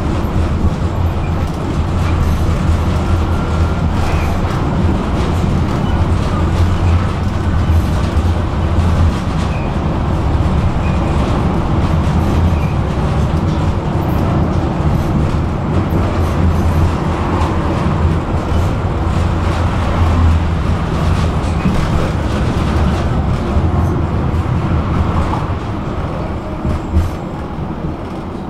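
Tram running along its rails: a steady low rumble with wheel-on-rail noise and scattered clicks from the track, getting somewhat quieter near the end.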